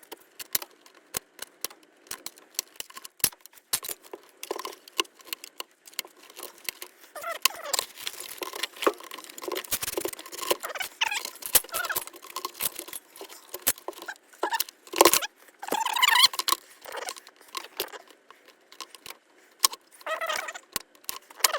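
Repeated sharp clicks, scrapes and rattles of hand work on an engine's fuel system: injector connectors being unclipped and the fuel rail worked loose from the injectors.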